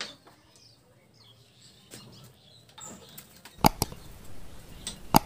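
Handling noise and a few sharp metal clicks and knocks as hands fit a homemade screw puller around the steel shaft and magnet rotor of an e-rickshaw hub motor. There is a pair of clicks about three and a half seconds in and more near the end.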